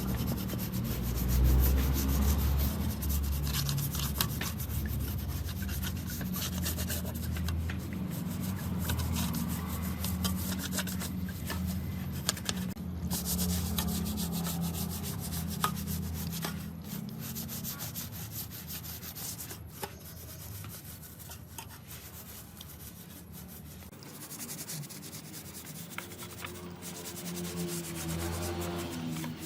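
Continuous sanding and rubbing with many quick scraping strokes, as on a rusty part being abraded clean. The sound eases off somewhat after about 24 seconds.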